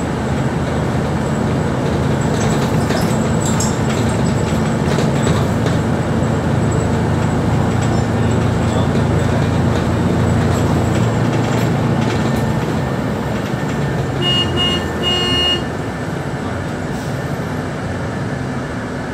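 Steady engine and road rumble heard from inside a moving city bus. About fourteen seconds in, a vehicle horn sounds twice briefly.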